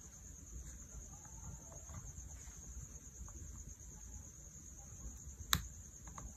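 Faint steady high-pitched chirring, like insects, with a low background rumble and one sharp click about five and a half seconds in.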